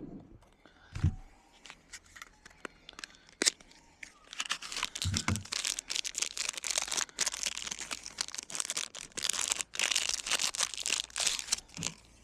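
Pocket-knife packaging being opened by hand: a few scattered clicks and handling rustles, then from about four seconds in a long stretch of continuous tearing and crinkling with one brief break.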